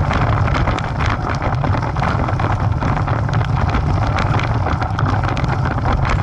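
Wind buffeting the microphone of a camera riding along on a moving bicycle, a steady low rumble, with bicycle tyres crunching and clicking over loose gravel.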